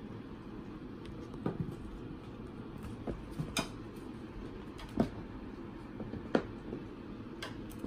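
Balinese kittens playing on a carpet: a handful of short, soft taps and thumps from their pouncing and scuffling, over a steady background hiss.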